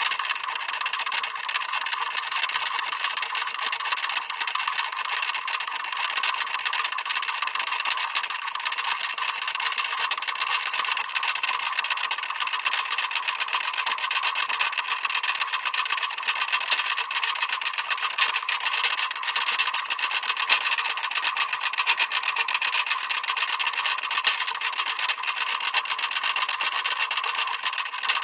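Clock ticking steadily, the ticks coming fast and close together without a break.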